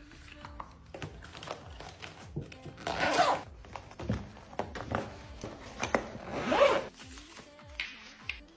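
Kitchen packaging and containers being handled: two long rasping strokes, about three and a half seconds apart, among small clicks and taps, over background music.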